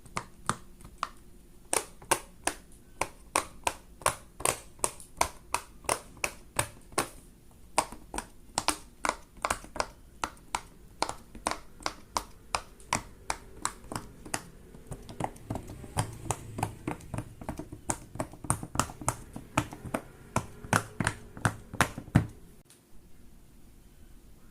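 Silicone bubbles of a Pop It fidget toy being pressed one after another, each giving a sharp pop. The pops come at an even pace of about two to three a second and stop near the end.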